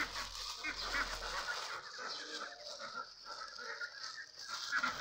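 Domestic fowl calling in quick repeated bursts, over the rustle of plastic bags being handled and tied.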